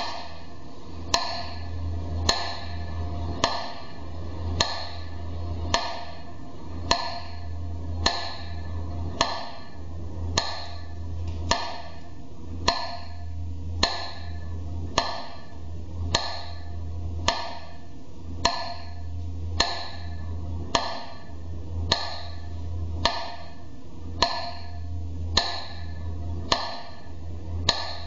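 Metronome ticking slowly and evenly, a sharp tick a little over once a second, over a low steady hum. It is the metronome that marks a minute of silence.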